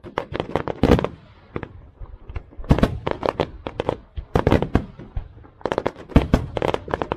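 Fireworks going off: rapid volleys of sharp bangs in several clusters, with short pauses between the clusters.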